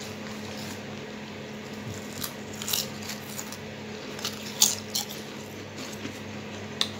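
Lay's potato chips crunching as they are bitten and chewed, in a handful of short sharp crunches spread through the second half. A steady low hum runs underneath.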